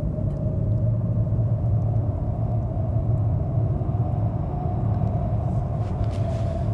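A steady low rumbling drone with one thin, slowly wavering tone above it: an ominous soundtrack bed.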